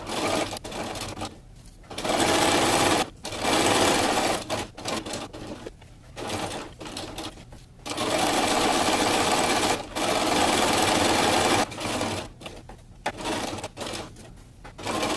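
Electric domestic sewing machine stitching through two layers of cotton fabric in several stop-start runs, the longest nearly four seconds past the middle, with quieter gaps between runs as the fabric is guided around the edge.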